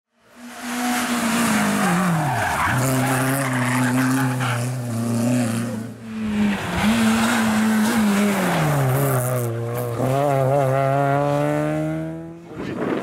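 Rally car engines at hard throttle on a stage, in short clips cut together: the revs drop sharply, hold, fall away, then climb steadily through a long pull near the end.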